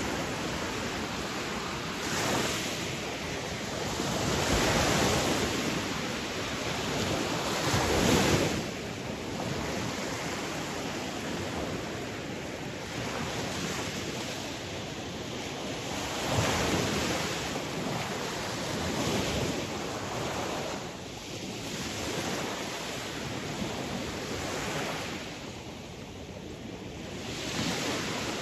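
Sea waves washing onto a shore: a continuous rush of surf that swells and ebbs every few seconds, with the biggest surge about eight seconds in.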